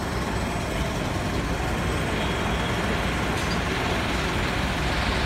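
Steady street traffic noise, a continuous low rumble of road vehicles.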